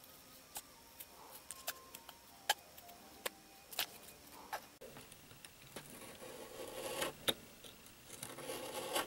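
Scissors snipping through stiff cardboard, a series of short sharp snips, followed near the end by a longer scraping sound as a small blade works the cut edge.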